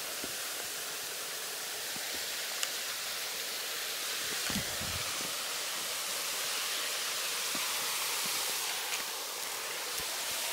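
Small forest creek running over rocks: a steady rush of water, with a soft low thump about halfway through.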